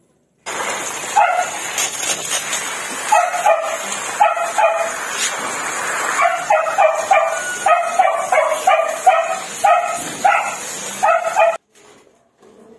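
A dog barking repeatedly in short, high yaps, several in quick pairs, over a steady rushing noise that starts suddenly and cuts off near the end.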